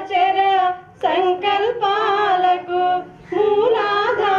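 A single high voice singing a song unaccompanied, in held-note phrases with short breaks about a second in and near three seconds in.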